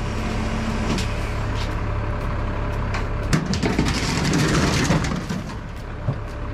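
Heavy machinery engine running steadily with a low rumble, with a flurry of sharp clanks and knocks about halfway through.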